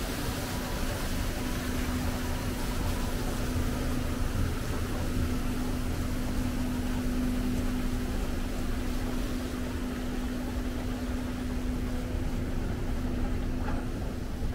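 A steady machine hum with one constant low tone over an even background hiss and rumble; the tone fades out near the end.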